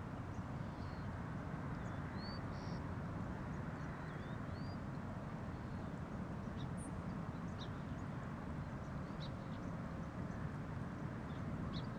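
Steady low outdoor background rumble with a few faint, short bird chirps and calls scattered through it, including a couple of brief upward-swooping notes early on and several short ticks later.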